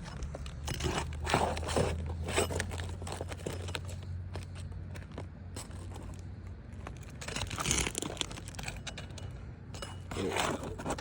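Asphalt roof shingles crunching and scraping as they are lifted and pried at during nail removal, in uneven bouts about a second in, around seven seconds in, and near the end. A low steady hum sits underneath for the first part.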